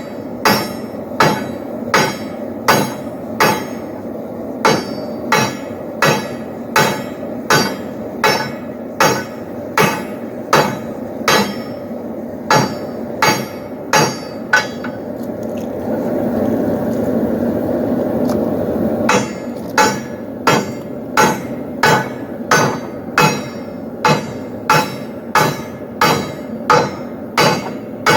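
Blacksmith's hand hammer striking steel on an anvil in an even rhythm, about one and a third blows a second, with a steady rushing noise underneath. The blows stop for about four seconds midway, when the rushing noise grows louder, then resume at the same pace.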